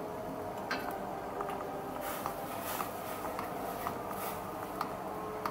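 Water boiling in a steel wok with an egg poaching in it, with irregular light ticks and scrapes as a metal spatula touches the wok.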